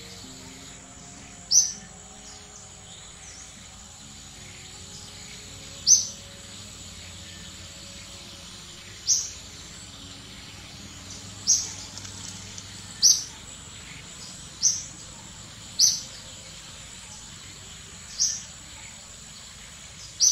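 A bird repeating one short, high call about nine times, a few seconds apart, over a steady high-pitched insect drone.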